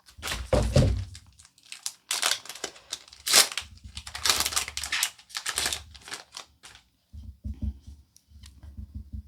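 A Pokémon card booster pack's foil wrapper being torn open and crinkled in the hands, in a quick run of sharp rustles and tears. Near the end it gives way to quieter, duller handling sounds.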